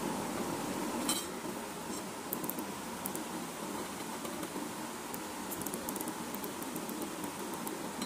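Small plastic tactile push-button switches set down on a hard board, with light clicks and faint ticks: one sharper click about a second in, then scattered ticks, over a steady hiss.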